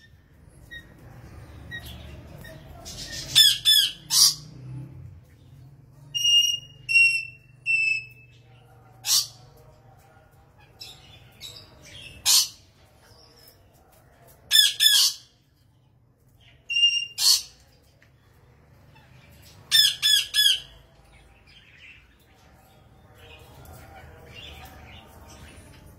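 African grey parrots calling on and off: harsh squawks, some in quick runs of two or three, and a run of three short, clear whistles.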